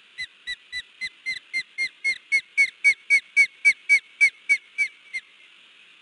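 Osprey giving a rapid series of short, high, down-slurred alarm calls, about four a second and about nineteen in all, growing louder toward the middle and breaking off near the end. The calls are a sign that she is alarmed by an intruder.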